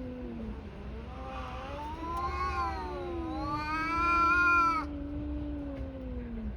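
Two tabby cats yowling at each other in a fight standoff. One holds a long, low, wavering yowl throughout. The other joins about two seconds in with a higher wail that rises and falls, grows loudest and breaks off abruptly about two-thirds of the way through.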